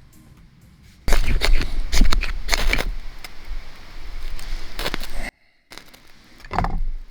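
Close handling noise: clicks, rattles and rustling with a heavy low rumble, starting suddenly about a second in and cutting off abruptly after about four seconds, then a shorter burst near the end.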